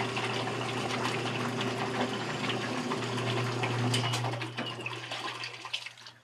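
Maytag LAT9240AAE top-load washer spinning and draining: a steady motor and drain-pump hum with water rushing out. About four and a half seconds in it winds down as the lid is lifted and the new lid switch cuts the spin.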